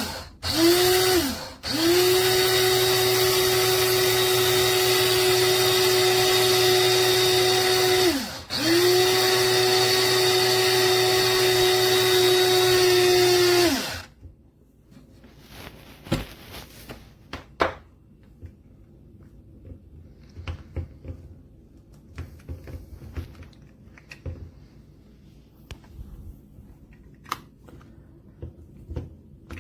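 Proctor Silex electric blade coffee grinder's motor running: two short pulses, then two long runs of about six seconds each with a brief stop between them, its pitch dropping as it spins down each time. After it stops there are faint clicks and handling noises.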